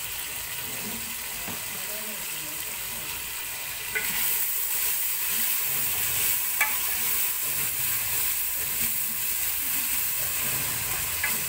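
Pork pieces frying in oil in an aluminium pressure-cooker pot, sizzling steadily. The sizzle grows louder about four seconds in, as a wooden spatula stirs the meat with a few sharp knocks against the pot.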